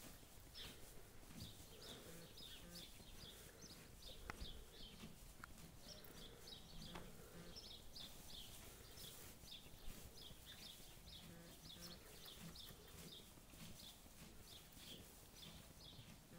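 Faint, quiet background of many short, high chirps repeating throughout, typical of small birds, with a few soft sharp knocks in between.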